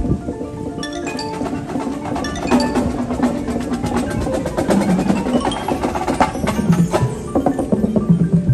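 Marching band music led by the front ensemble's mallet percussion: rapid struck notes on marimba and glockenspiel-like bells come in about a second in, over sustained low notes.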